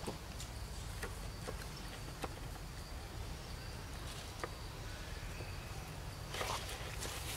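Outdoor ambience of faint insect buzzing with scattered light ticks over a steady low rumble; about six seconds in a burst of rustling starts as the camera is moved through the vegetation.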